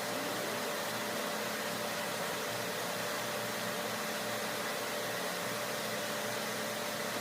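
A steady machine hum with a constant high note over an even hiss, unchanging throughout.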